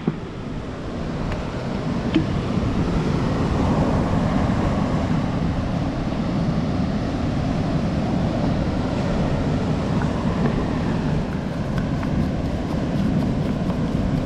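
Steady wind buffeting the microphone, with the rush of sea surf behind it.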